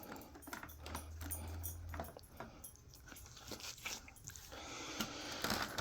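Faint clicks, taps and rustles of a stick vacuum's plastic dirt cup and parts being handled by hand, with the vacuum switched off.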